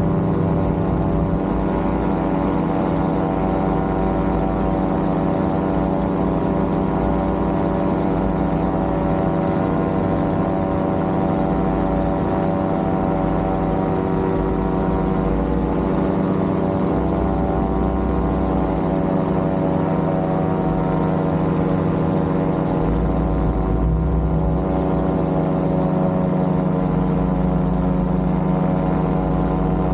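Tandem paramotor's engine and caged propeller running steadily in cruising flight, an even drone with many evenly spaced overtones.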